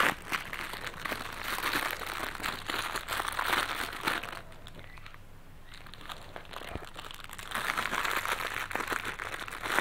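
Clear plastic bag crinkling as it is opened and handled and plastic pinwheel parts are taken out of it. The crinkling comes in two spells: through the first four seconds or so, then again from about seven and a half seconds in.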